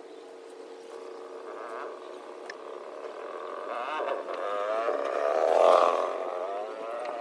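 An animal's drawn-out, wavering call, starting about halfway through and growing louder to a peak near the end, over a faint steady hum.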